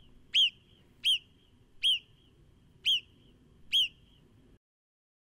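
Marmot giving a series of short, sharp whistled chirps, five in a row about a second apart, each dropping quickly in pitch.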